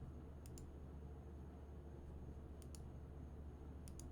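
Faint computer mouse clicks, three quick double-clicks spaced a second or two apart, over a low steady hum.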